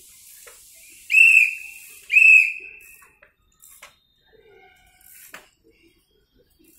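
Two short, loud, high-pitched whistle tones, the first about a second in and the second a second later, each held briefly before cutting off.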